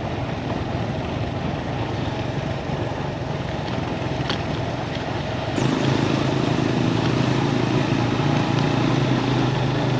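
Motorcycle engine running on the move, a steady hum over a rushing noise. About halfway through it gets louder and fuller and stays so.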